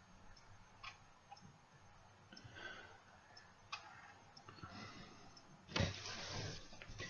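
Faint scattered clicks and taps of shelving hardware being handled, then a louder scraping and rustling noise from about six seconds in.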